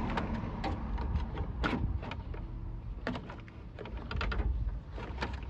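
Plastic push-pin clips popping out and the plastic upper radiator-support cover on a 2003 Honda CR-V being handled and pulled off: a run of irregular clicks, knocks and plastic rattles.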